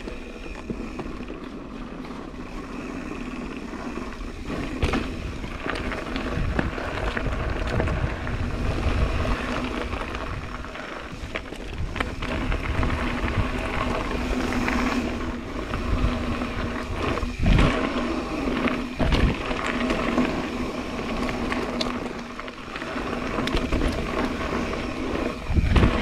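Mountain bike rolling over a gravel and rock trail: steady tyre and trail noise with the bike rattling, sharp knocks now and then as it hits rocks, and some wind on the microphone.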